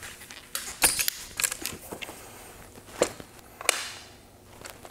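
Irregular clicks and knocks from the hinges, latches and frame of a Jetson folding electric bike being unfolded by hand, with a few sharper clacks.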